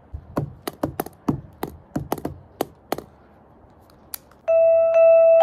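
A quick irregular run of about a dozen sharp clicks and taps over some three seconds, then one more. Near the end, music with bell-like mallet-percussion tones starts and becomes the loudest sound.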